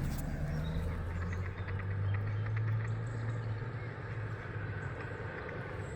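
A low, steady hum that swells and then fades after about three and a half seconds, with faint rapid ticking over it from about one to three seconds in.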